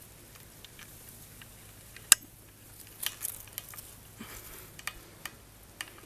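A single sharp crack about two seconds in, the loudest sound, followed by a scatter of faint clicks and rustles.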